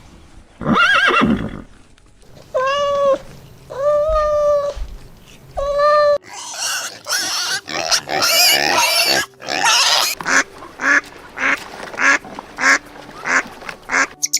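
Farm animal calls: three steady-pitched calls of about half a second to a second each, then, after an abrupt change, a rapid run of short, noisy calls, roughly two a second.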